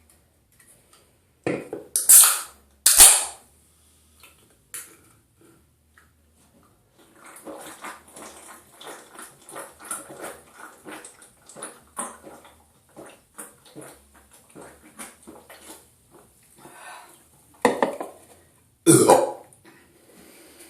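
A person burping loudly: a few big burps in the first three seconds and two more near the end, with a long run of quieter, rapid short sounds in between.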